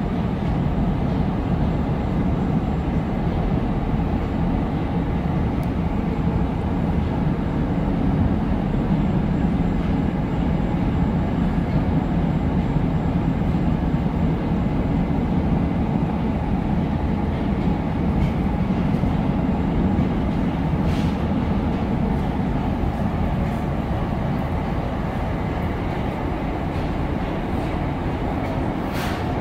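Moskva-2020 metro train running between stations, heard from inside the carriage: a steady low rumble of wheels and running gear on the rails, with a couple of faint clicks near the end.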